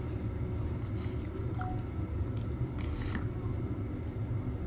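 Steady low rumble of a space heater running, with a few faint eating and drinking noises over it, including a sip from a soda can.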